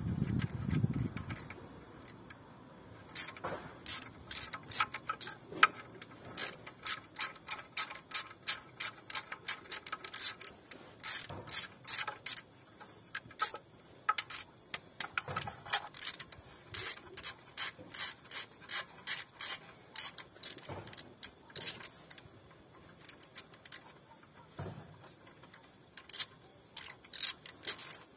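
Hand ratchet clicking in quick runs of strokes with short pauses between, as a fastener in the engine bay is undone.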